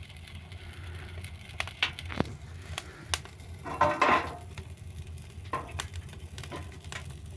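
Wood fire in a fireplace crackling, with scattered sharp pops over a steady low hum and a short rustling burst about four seconds in.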